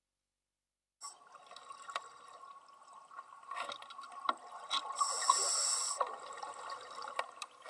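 Underwater sound from scuba diving: faint clicking and crackling, with a hiss of breath through a scuba regulator about five seconds in that lasts about a second. The first second is silent.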